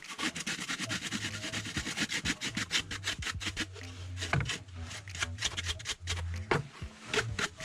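A bristle brush scrubbing dust off an old graphics card in quick back-and-forth strokes, several a second.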